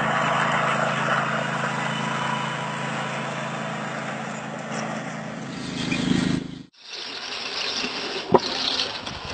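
Pickup truck engine running steadily under a wash of wind noise. It cuts off abruptly about two-thirds of the way through, giving way to quieter scraping with a couple of sharp knocks.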